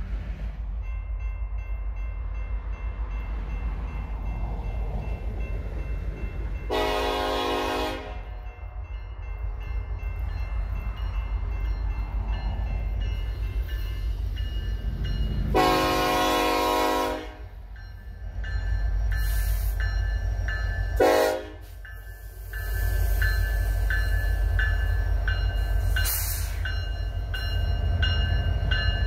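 Montana Rail Link diesel freight locomotives approaching with a steady low rumble and sounding the horn three times: two long blasts about eight seconds apart, then a short one. In the last few seconds the locomotives pass close, louder, with a regular clicking of wheels over the rails.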